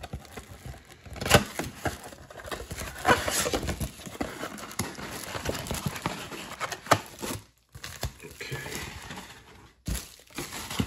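A cardboard Panini Chronicles Draft Picks blaster box being torn open by hand, and the plastic-wrapped card packs inside crinkling as they are pulled out: irregular crackling and tearing, with a short pause a little past halfway.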